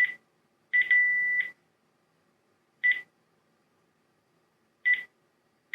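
Panasonic DECT 6.0 cordless phone handset giving short key-tone beeps as its buttons are pressed while moving through a menu, about one every two seconds. About a second in, one beep runs on into a longer steady tone.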